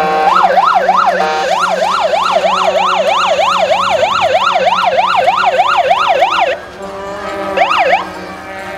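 Police siren in yelp mode: a fast rising-and-falling wail, about three sweeps a second. It breaks off briefly about a second in, then cuts out suddenly after about six and a half seconds, with one more short up-and-down sweep near the end.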